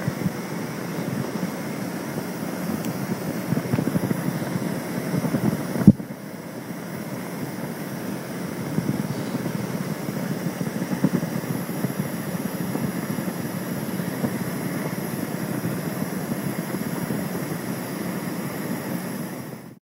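Low, steady rumbling noise of a boat under way, heard from on board, with wind buffeting the microphone. A single sharp click about six seconds in, and the sound cuts off abruptly just before the end.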